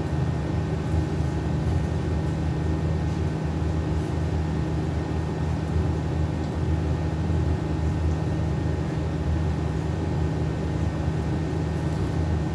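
A steady low mechanical hum with a few faint constant tones, unchanging throughout.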